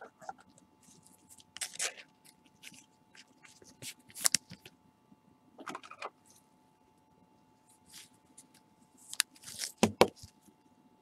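Gloved hands handling a trading card and a hard plastic card holder: scattered light scrapes, rustles and clicks, with a few louder sharp clicks near the end.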